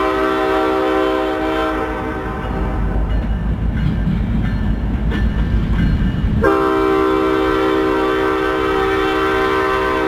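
Locomotive's Nathan Airchime K5HLB five-chime air horn blowing a sustained chord that trails off about two seconds in. Only a low rumble is heard for about four seconds, then the horn sounds again abruptly and holds.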